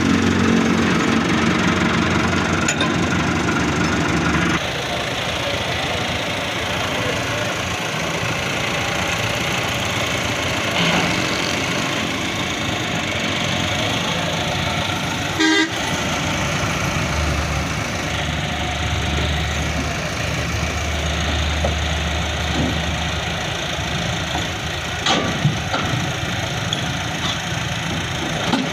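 Massey Ferguson 385 tractor's diesel engine running steadily as it drives down off a low-bed trailer.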